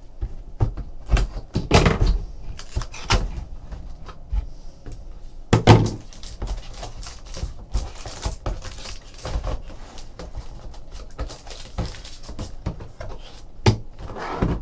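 A cardboard trading-card box being opened by hand and its packs pulled out: scattered knocks and thunks of handling, the loudest about halfway through.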